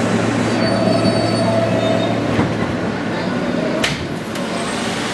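NYC Subway R160 car running along a station platform: a steady rumble with a low motor hum, a faint high wheel squeal for about a second and a half near the start, and a sharp metallic clank about four seconds in.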